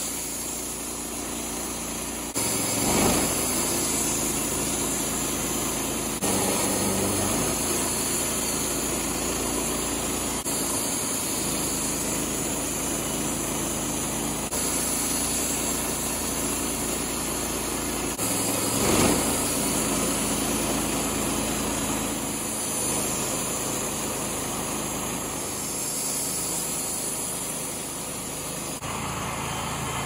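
Wood-Mizer LT15 band sawmill's gas engine running steadily as the band blade saws through a ponderosa pine log, with abrupt changes in tone every few seconds and two brief louder bursts, one a few seconds in and one just past the middle.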